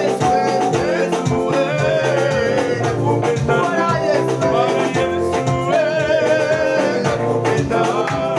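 Upbeat praise music: voices singing over a band with a steady dance beat.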